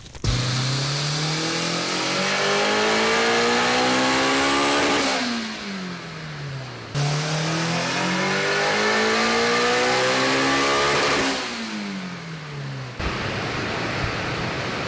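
Turbocharged Honda S2000's four-cylinder engine pulling up through the revs under load twice, each pull rising steadily in pitch for several seconds before the revs fall away, then running steadily near the end.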